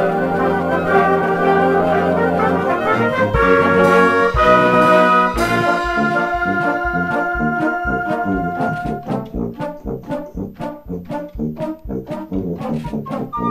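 Concert wind band playing: full held brass chords, then strong accented chord hits about three and a half, four and a half and five and a half seconds in. From about nine seconds in, the held chords give way to short, detached notes in a steady, bouncy rhythm.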